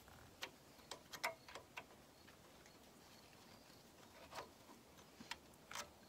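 Faint, scattered small clicks and taps of fingers and a bolt against metal engine parts while a bolt is felt into its hole by hand, the loudest about a second and a quarter in. Otherwise near silence.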